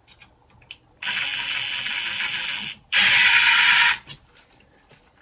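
Cordless drill/driver running a screw in two bursts: a two-second run with a thin high whine from the motor, then after a short pause a louder one-second run at full speed.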